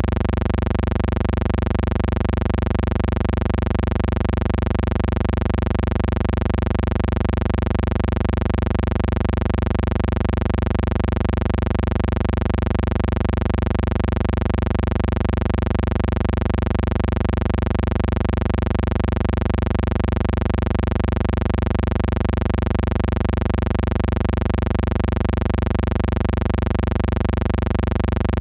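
A steady, unchanging low hum with a faint buzz above it and nothing else: noise from the transfer of a silent film, with no recorded sound.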